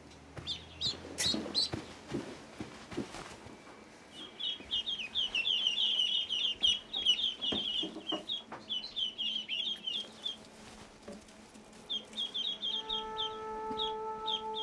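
Ducklings peeping in bursts of rapid, high chirps. There are a few knocks in the first few seconds, and a steady held tone comes in near the end.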